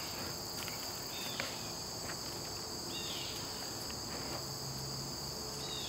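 Steady insect chorus, a continuous high trill at two pitches, with a few faint short chirps and light taps over it.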